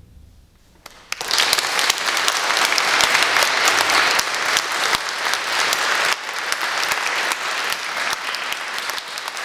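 Audience applause breaking out about a second in, dense and loud, easing off slightly toward the end.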